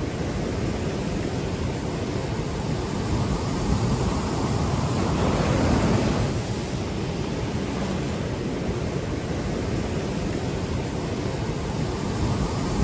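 Ocean surf breaking and washing up a sandy beach: a steady rush of water that swells and fades about five to six seconds in.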